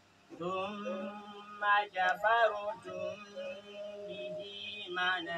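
A man's voice chanting a recitation in a drawn-out, melodic style, with long held notes that bend up and down, starting after a brief pause.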